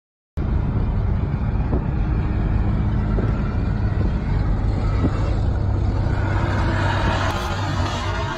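A car at speed, with a steady loud rumble of road and engine noise. Over the last couple of seconds a harsher scraping hiss grows as metal grinds along the road, throwing sparks.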